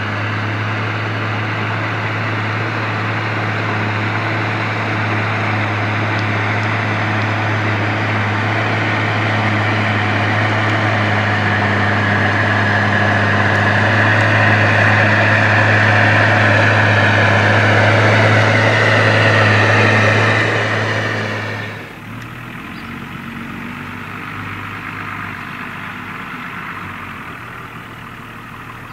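New Holland M135 tractor's six-cylinder diesel running steadily under load while ploughing, slowly getting louder. About three-quarters of the way through it drops off abruptly to a quieter, duller engine sound.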